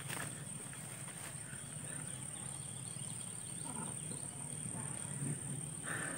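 Quiet outdoor ambience with a steady, thin, high-pitched insect drone, such as crickets or cicadas.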